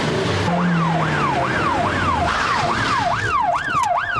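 Police car siren in a fast up-and-down yelp, about two sweeps a second, starting about half a second in, over the car's engine noise.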